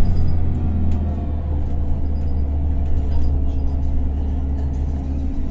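Higer KLQ6129GQ2 city bus's diesel engine running under way, heard from inside the passenger cabin: a steady low drone with light rattles.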